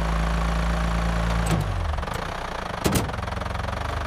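Animated tractor engine sound effect idling, a steady low hum that weakens and changes about two seconds in. A sharp click comes near the three-second mark.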